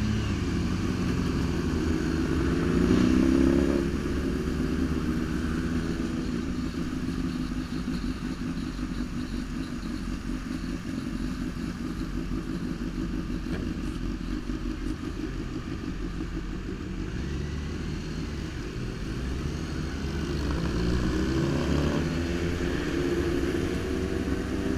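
Sport motorcycle engine heard from the rider's own bike while riding. It revs up to its loudest about three seconds in, drops off suddenly, runs more steadily through the middle, and revs up again near the end.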